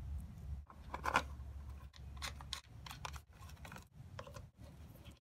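A few short clicks and scrapes of hand tools and metal and plastic parts as the carburetor linkage and air filter housing are refitted on a small Kohler mower engine, over a low hum. The loudest click comes about a second in.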